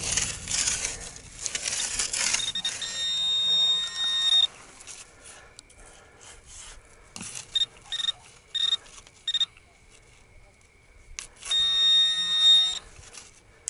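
Metal detector target tones: a buzzy electronic beep that sounds in short bursts and two longer warbling stretches as the coil passes over a buried target, which turns out to be a coin. It opens with a short rustle of sand being disturbed.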